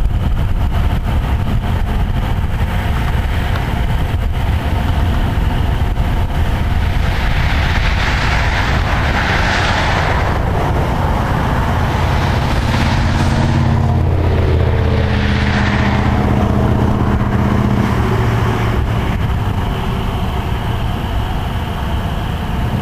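Steady low rumble of wind on the microphone, with road vehicles passing: the loudest swells rise and fade about eight to ten seconds in and again around fifteen seconds, with an engine hum between them.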